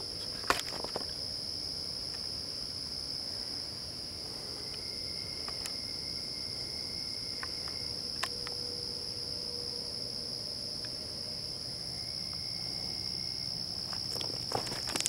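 A steady, high-pitched chorus of crickets at night, with a few faint clicks. Footsteps on the rocky trail begin near the end.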